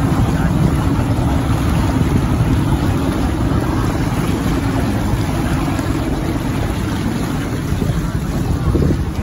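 Steady rush of a motorboat under way: wind buffeting the microphone over the drone of the motor and the churn of the wake.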